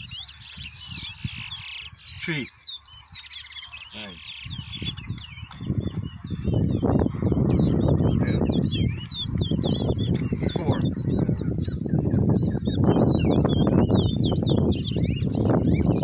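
Caged towa towa (chestnut-bellied seed finch) singing in a song contest: a rapid run of short, quick chirps and twittering phrases that goes on without pause. From about six seconds in, a loud low rumbling noise rises under the song.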